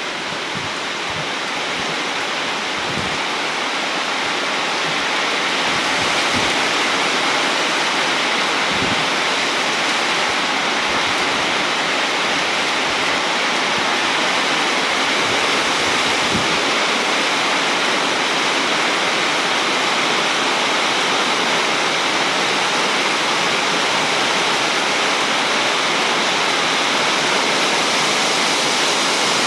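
Heavy rain pouring down in a steady downpour, growing a little louder over the first few seconds and then holding, with a few soft low knocks early on.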